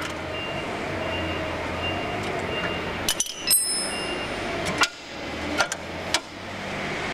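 Metal clink with a brief ring about halfway through, then a few sharp clicks as the Smart Hitch2's steel on/off lever handle and engagement-pin mechanism are worked by hand, over a steady low hum.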